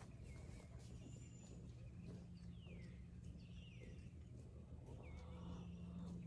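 Faint bird calls: a few short chirps that slide down in pitch, over a low steady hum.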